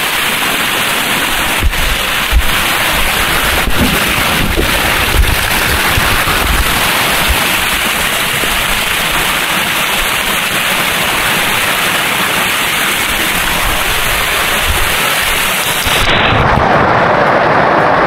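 Loud, steady rushing of a waterfall close to the microphone, with low rumbling gusts and a few sharp knocks. About two seconds before the end it cuts abruptly to a duller, different sound.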